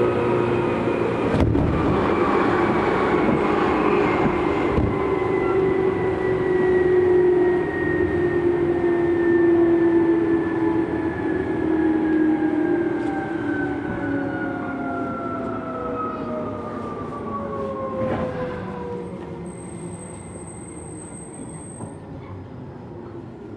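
Tokyu 8500 series electric train heard from inside the car as it brakes: its motor and gear whine, several tones together, glides steadily down in pitch and fades along with the running noise as it slows into a station. A sharp click comes about a second and a half in, and a brief thin high whistle sounds near the end.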